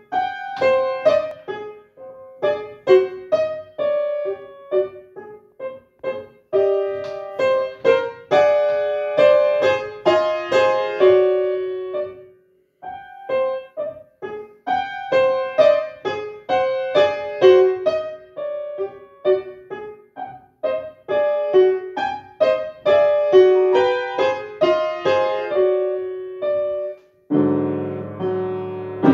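Solo upright piano playing a lively piece in short, detached notes, phrase by phrase, with brief breaks about six and twelve seconds in. Near the end it lands on a dense, held low chord.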